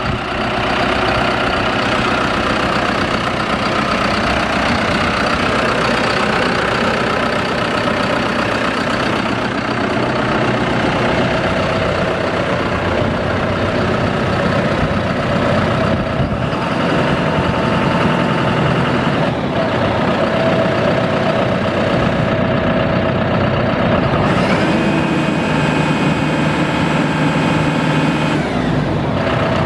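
An engine running steadily. A higher whine rises about 24 seconds in, holds for a few seconds, then falls away shortly before the end.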